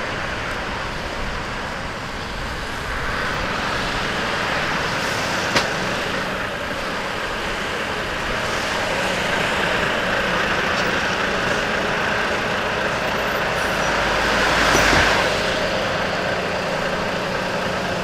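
Road traffic on a wet road: the steady noise of car and bus engines and tyres, swelling as a vehicle passes close about fifteen seconds in. There is one sharp click about five and a half seconds in.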